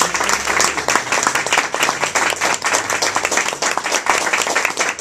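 Audience applauding, with one pair of hands clapping loudly close by.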